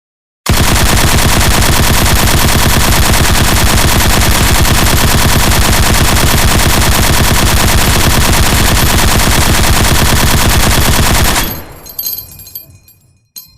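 M60 machine gun (7.62×51mm NATO) firing one long, unbroken full-auto burst of about eleven seconds, which stops abruptly; a few scattered metallic clinks follow near the end.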